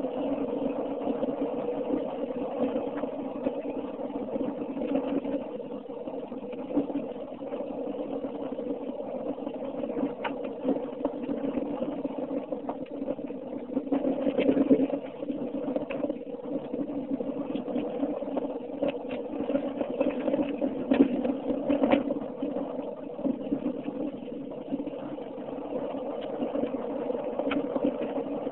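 Car driving along a snow-covered road, heard from inside the cabin: a steady engine and road drone, with a few light clicks now and then.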